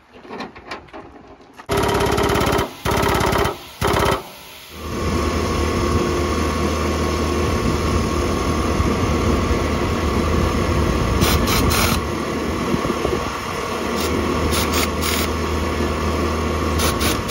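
Pneumatic impact wrench on a pickup's wheel lug nuts, running in several short bursts, then a long stretch of steady machine noise with a low hum.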